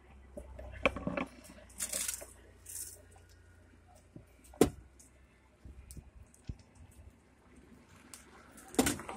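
Chaat being assembled by hand at a street-food cart: scattered clinks and knocks on steel plates and bowls, with brief rustles and soft wet squishing. The sharpest clink comes about four and a half seconds in, another near the end.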